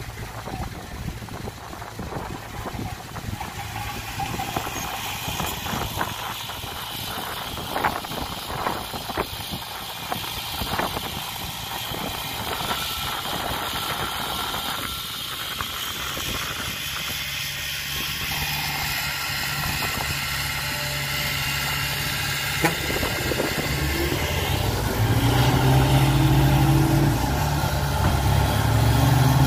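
Heavy diesel engine running, with a scatter of sharp knocks in the first half; in the last few seconds the low engine drone grows steadier and louder.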